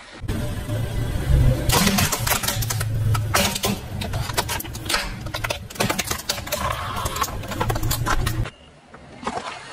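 Car rolling over objects and crushing them: the engine runs low under a dense run of sharp cracks and crunches, which stop abruptly about eight and a half seconds in.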